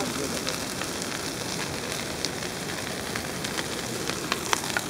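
Bonfire crackling: a steady hiss with sharp pops, several in quick succession near the end.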